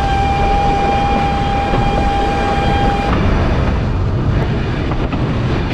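Train running with a steady low rumble while its horn sounds one steady note for about three seconds, then cuts off abruptly.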